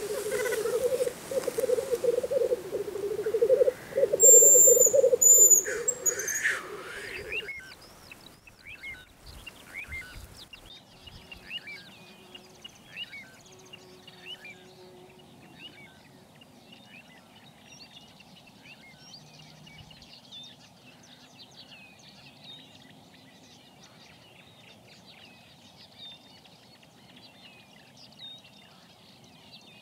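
A loud, pulsing intro sound with whooshes for the first seven or so seconds. After that comes a faint, dense chorus of wild birds, many short chirps and calls overlapping.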